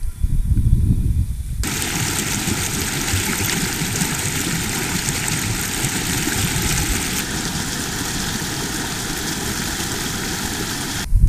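A shallow mountain stream rushing and splashing over rocks: a steady, full rush of water that starts abruptly about a second and a half in and cuts off suddenly near the end. Before it comes a brief low rumble of wind on the microphone.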